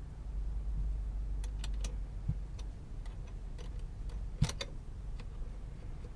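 Light clicks and taps of hands working battery leads and terminals, with one sharper knock about four and a half seconds in, over a low rumble.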